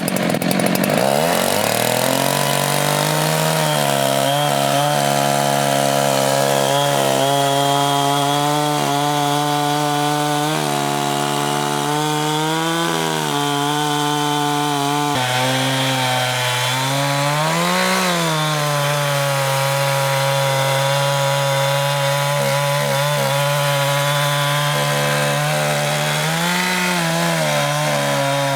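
Chainsaw on a homemade Alaskan-style chainsaw mill, ripping a heart pine log lengthwise. It revs up at the start, then runs steadily at high speed under load in the cut. Its pitch briefly rises and falls back twice, about two-thirds through and near the end.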